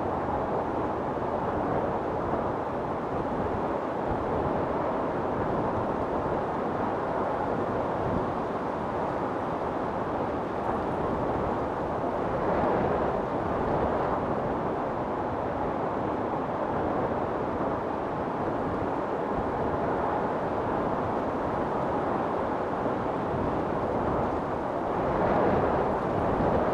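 Storm wind blowing steadily in a dense rushing noise, gusting up about halfway through and again near the end.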